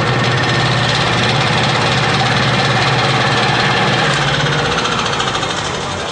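Loud, steady engine-like mechanical rumble, with a tone that glides downward about two-thirds of the way through.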